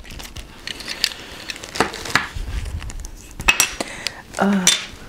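Several sharp clicks and light knocks of small hard clear-plastic pieces being handled and set down on a wooden tabletop: the little container holding a beeswax puck for thread.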